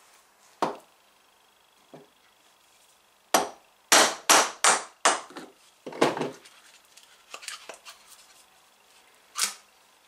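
Sharp knocks of a hand tool striking a plastic mould to free a cast resin block from it. Single knocks come near the start, then a quick run of four or five, the loudest, about four seconds in, and one more near the end.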